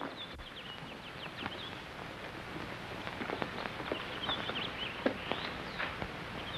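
Light footsteps of people walking away, with a few brief high bird chirps over a steady hiss.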